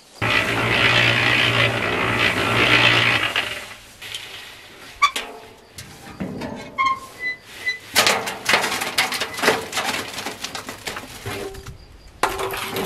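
Drum cement mixer running, its drum tumbling a concrete mix with a steady hum, loud for the first three seconds or so. The drum is then tipped by its hand wheel, and wet concrete slides and clatters out into a plastic wheelbarrow, a run of scraping and knocks.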